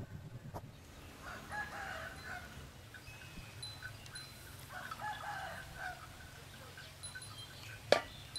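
A rooster crowing twice, each crow about a second long and a few seconds apart. A single sharp click near the end.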